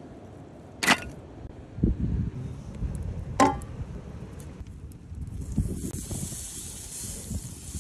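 Butter sizzling in a hot hammered metal frying pan over a wood fire, a steady hiss that starts about five seconds in as the butter melts. Before that come two sharp knocks and a low rumble of wind on the microphone.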